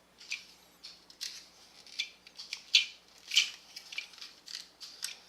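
Hard plastic parts of a Transformers Titans Return Astrotrain action figure clicking and snapping as it is handled and fitted together during transformation: a quick string of sharp ticks and clacks, the loudest about three seconds in.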